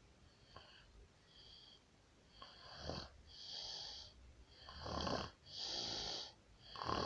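A pig snoring in its sleep, breath after breath with a wheezy whistling edge. The breaths start faint and grow louder from about two and a half seconds in, coming roughly once a second.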